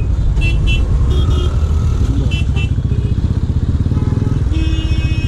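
Motorcycle engine idling steadily, with several short horn beeps from the surrounding traffic in the first half and one longer horn honk near the end.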